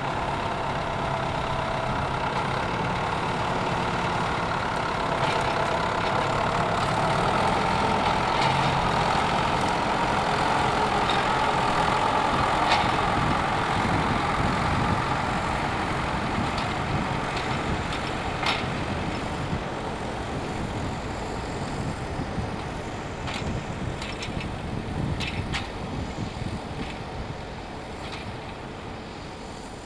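Farm tractor engine running steadily, with occasional knocks and rattles, easing quieter over the last several seconds.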